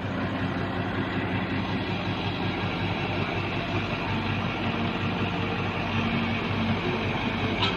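Heavy diesel engine running steadily with an even hum, from an excavator or the truck hauling its trailer.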